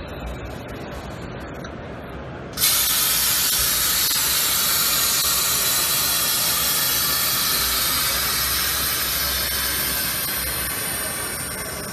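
Compressed air hissing steadily through a GoJak Air pneumatic vehicle jack as it is operated. The hiss starts abruptly a few seconds in, over a lower background noise, and eases slightly near the end.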